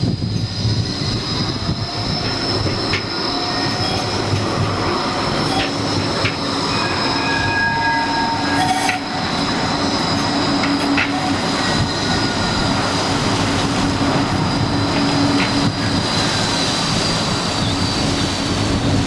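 Bombardier Flexity 2 light-rail trams rounding a tight curve, their wheels squealing in a steady high-pitched whine. Through the middle a lower hum joins it as a tram passes close, with a few sharp clicks.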